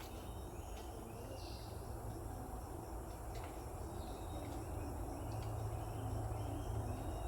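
Forest ambience: short chirping animal calls repeating every second or so, over a low steady hum.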